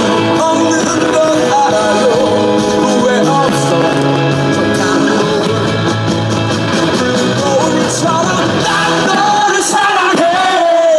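Music: a Korean pop song playing loudly and steadily, a wavering melody over sustained chords.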